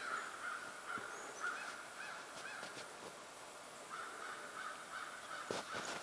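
Harsh animal calls repeated about twice a second, in two runs with a pause of about a second between them.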